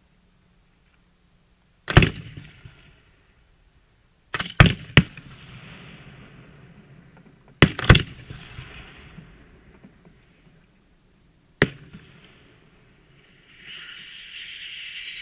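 Aerial firework shells bursting overhead: one sharp bang, then three in quick succession, then two close together, then a last single bang, each echoing briefly. A steady high hiss sets in near the end.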